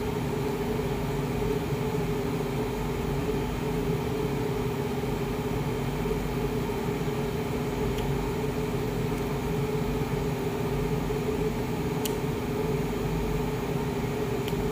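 Steady machine hum with two low steady tones running underneath, with a faint click past the middle and a sharper click near the end.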